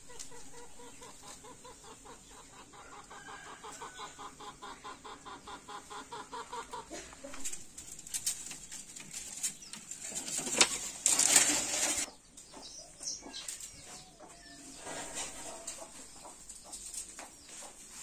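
A hen clucking in a steady rhythmic run, about four clucks a second, for the first seven seconds or so. Then dry brushwood twigs rustle and scrape as a bundle is carried, loudest a little past the middle.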